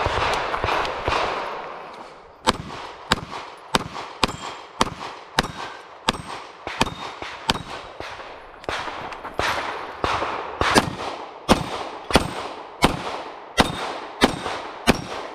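Walther PDP Compact pistol firing a long string of single shots, about one every two-thirds of a second, with steel plate targets ringing when hit. The shooting starts about two and a half seconds in.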